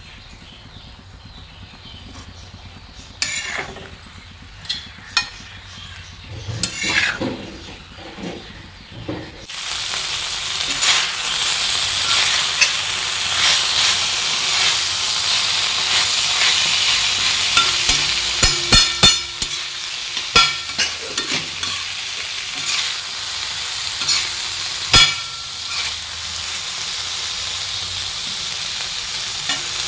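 Mutton leg pieces sizzling in oil on a flat tawa while a spatula scrapes and turns them on the pan. Scattered scrapes come first, then the sizzling grows much louder about a third of the way in and keeps on steadily, with sharper scrapes now and then.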